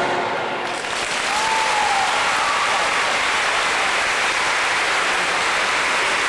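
Audience applauding: dense, steady clapping that swells in about a second in, just as the music stops.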